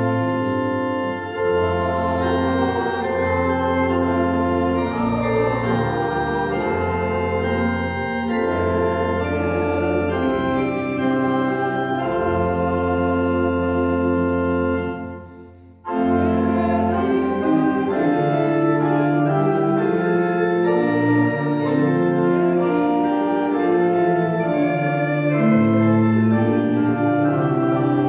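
Church organ playing in held chords that change step by step, breaking off briefly a little past halfway and then starting again.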